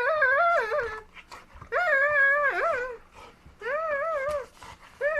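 Golden retriever whining in long, wavering, up-and-down calls, about four of them in a row with short pauses between.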